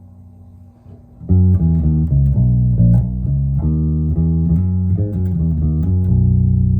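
Six-string electric bass, an Ibanez BTB866SC, played through an Ampeg BA-115 combo amp. A faint low note is ringing, then a quick run of plucked notes starts about a second in and ends on a held low note near the end.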